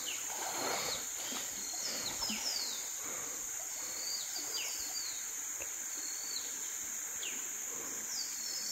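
Tropical forest ambience. Insects keep up a steady high-pitched drone, and short bird calls sliding downward in pitch repeat every second or so over a soft background hiss.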